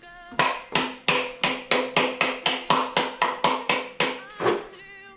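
Rapid hammer blows, about four a second, driving the rear shock mounting bolt home on a KTM 790 Adventure R; they stop shortly before the end.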